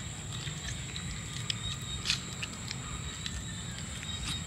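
Insects calling in two steady high-pitched tones over a low rumble, with scattered short clicks and cracks from grilled lobster being eaten by hand, the loudest click about two seconds in.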